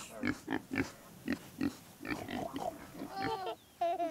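Pigs grunting in a quick run of short grunts.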